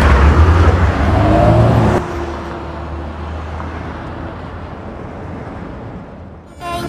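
A 2012 Chevrolet Camaro RS accelerating away, its engine loud for about the first two seconds with a brief rise in pitch, then dropping suddenly and fading steadily into street traffic noise as the car recedes.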